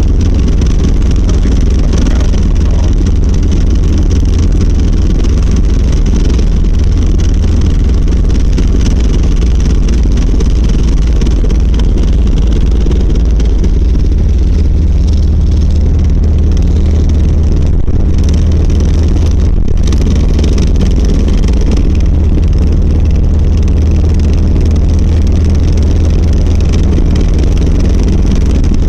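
1990 Volvo 740 running with a loud, steady low rumble and rattling vibration from the driveshaft, which the owner traces to a worn center driveshaft support bearing.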